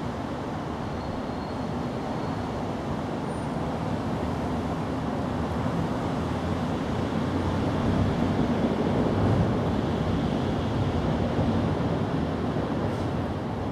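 Steady low outdoor rumble, with no clear engine note, swelling a little just past the middle.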